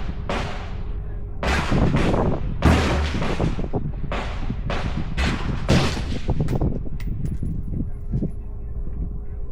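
Semi-automatic rifle fired in a string of about a dozen shots, each with a short echoing tail, spaced irregularly and stopping about seven seconds in; a few faint clicks follow.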